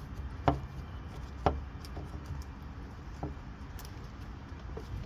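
A few light, separate knocks and taps as the plastic lower oil pan of an Infiniti Q50 3.0t is worked loose from the engine after its bolts are out.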